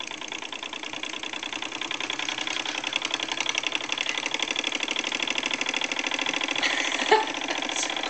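Late-1970s Wilesco toy live-steam stationary engine running, its steam exhaust beating in a fast, even rhythm that grows louder. A single sharp knock about seven seconds in.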